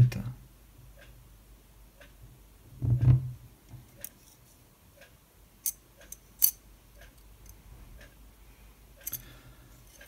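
Folding pocket knife being handled: a few sharp metal clicks from the blade and its ring lock, the loudest two a little past halfway, with a brief low sound about three seconds in.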